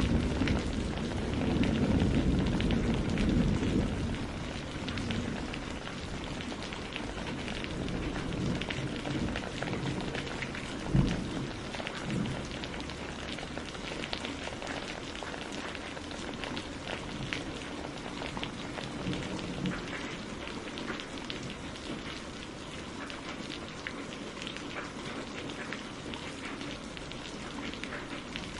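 Steady rain falling, with many small drops ticking on surfaces. A low rumble of thunder fades out over the first few seconds, and a single low thud comes about eleven seconds in.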